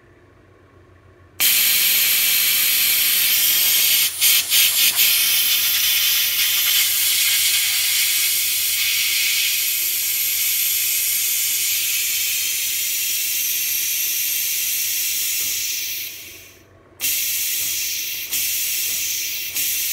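Loud compressed-air blast hissing from the segmented coolant-hose nozzles beside a CNC mill spindle, switched on through the machine's air blast relay. It starts about a second and a half in, flutters briefly around four seconds, drops out for about a second near the end and comes back.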